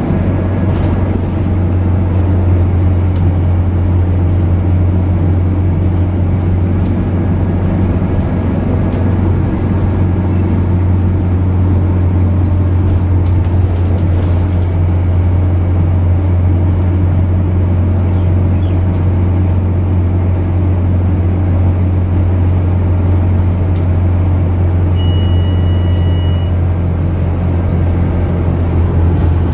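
Scania DC9 9-litre six-cylinder diesel of a Scania K94UB bus, heard from inside the passenger cabin while the bus drives along: a steady low engine drone with road rumble, unchanging throughout. Near the end there is a single short electronic beep.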